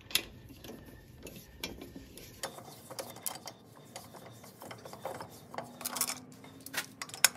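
Socket ratchet clicking in short, irregular runs as the bolts of a tractor's brake housing cover are snugged up, with a sharp metallic click near the end.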